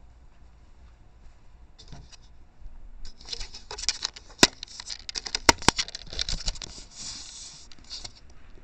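Handling noise from a trail camera being bumped and shoved about, picked up by its own microphone: scraping and rustling that starts about two and a half seconds in, with a few sharp knocks near the middle.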